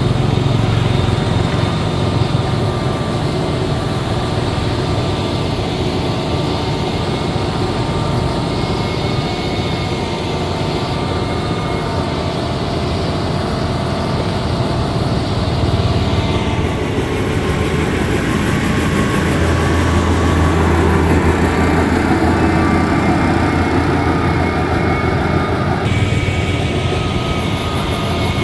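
Liugong motor grader's diesel engine running steadily, a heavy drone, with abrupt shifts in its tone about halfway through and again near the end.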